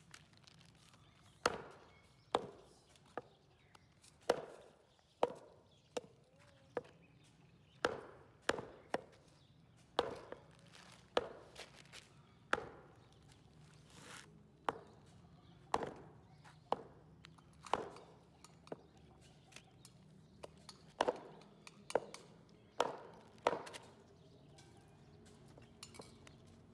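Butcher's cleaver chopping goat meat on a wooden log chopping block: sharp chops, each with a short ring, at an uneven pace of about one a second.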